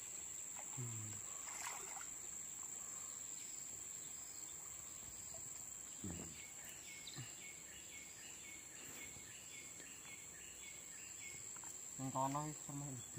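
Steady high-pitched insect drone over a quiet stream-side background. In the middle a high chirp repeats about twice a second for several seconds, and a man's voice briefly calls out near the end.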